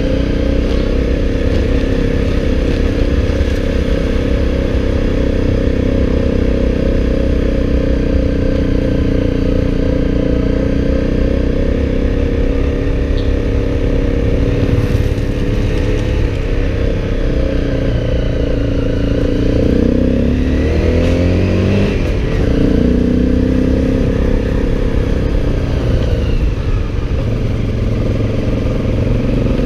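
Motorcycle engine running steadily under way, its pitch dipping and climbing again about twenty seconds in and once more near the end.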